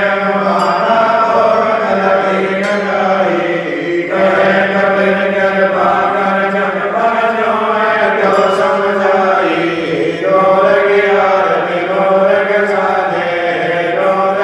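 Devotional aarti chanting: voices sing long, held, melodic phrases over a steady low drone.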